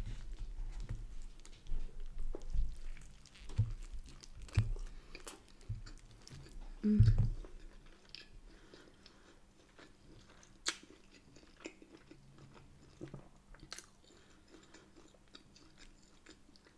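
Close-miked biting and chewing of a bagel sandwich with bacon, scrambled egg and mushrooms: soft bites and wet mouth clicks. The chewing is busiest in the first half, with a low thump about seven seconds in, and thins to faint, sparse clicks later.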